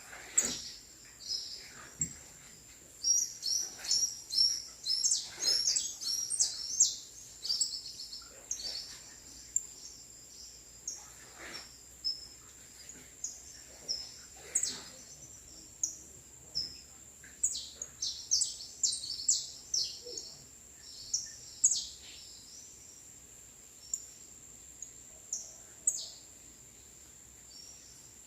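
Songbirds singing and chirping in quick high notes, a dense run of calls a few seconds in, then scattered calls. A steady thin high whine runs underneath.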